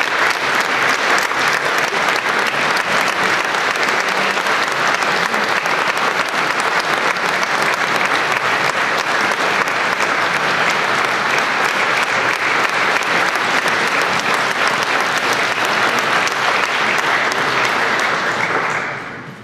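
Concert-hall audience applauding steadily, a dense patter of many hands clapping that dies away near the end.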